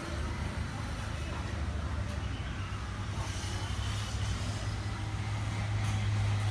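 Arc welding machine humming steadily at idle, ready to weld with a 6013 rod, over a faint background rush; the hum grows a little louder near the end.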